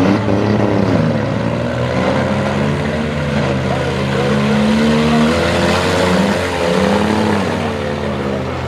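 Several front-wheel-drive demolition derby cars' engines running and revving together, their pitches rising and falling over one another.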